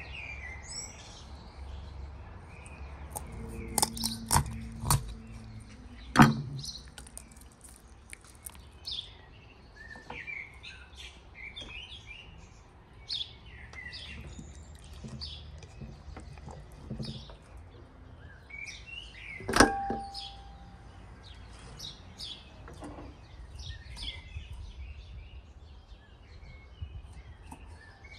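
Small birds chirping and singing throughout, with sharp knocks on a wooden cutting board as a raw chicken is worked: three or four close together about four to six seconds in, and one loud knock near twenty seconds.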